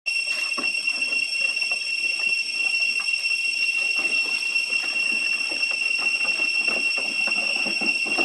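A steady, high-pitched insect drone from the surrounding forest, with scattered light knocks and scuffs as macaques move and tussle on a wooden roof.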